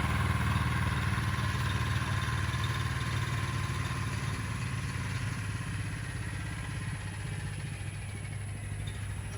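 An engine idling steadily, its low hum slowly fading.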